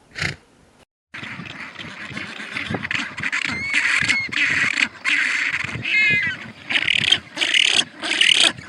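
Animal calls over a busy, noisy background: a short sound at the start, a cut to silence about a second in, then a few pitched cries and loud bursts broken by short gaps near the end.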